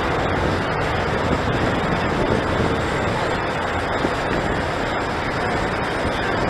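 Steady city traffic noise and street bustle, an even rumbling hiss with no single sound standing out.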